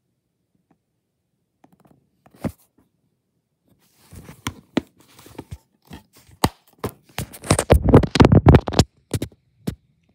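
Green plastic DVD case being handled and shut: scattered clicks and rustling, thickening into a dense run of loud clatter in the second half, with one last click near the end.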